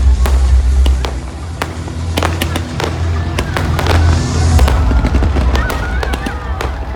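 Fireworks display: many sharp bangs and crackles, some in quick succession, over a steady deep rumble.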